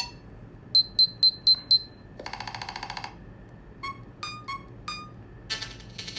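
Nothing Phone (1)'s loudspeaker playing short electronic tones: five quick high-pitched beeps, a brief buzzy tone, then four short blips at changing pitch. These are the phone's glyph ringtone or notification sounds, played while its back lights and speaker are being tested after reassembly.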